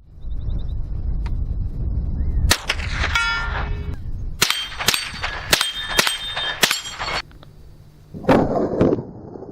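.22 rifle shots with steel plate targets ringing as they are hit. There is one shot and ring, then a quick string of five shots in about two seconds, each leaving a clear metallic ring, over low wind rumble.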